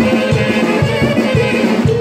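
Loud dance music with a steady drum beat, about four beats a second, under sustained melodic tones.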